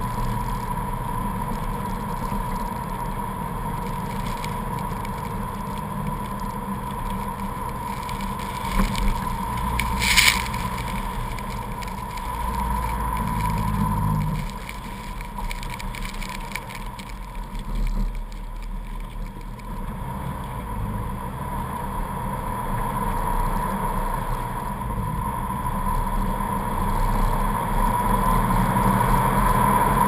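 Jeep Wrangler engine running and its tyres churning through deep snow on a blizzard-covered road, with a steady thin whine throughout. There is a sharp knock about ten seconds in, and the engine note changes around fourteen seconds in.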